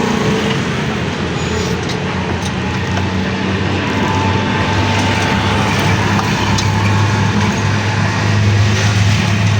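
A motor vehicle engine running steadily amid road traffic noise, its low hum growing louder about halfway through.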